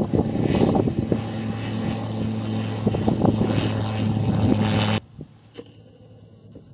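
Light aircraft's piston engine and propeller running close by, a steady hum with rough, crackly noise over it; it cuts off abruptly about five seconds in, leaving only a low, quiet background.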